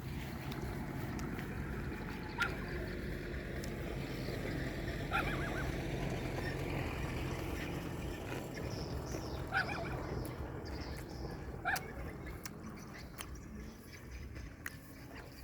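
A steady low engine hum, with four short bird chirps breaking in over it.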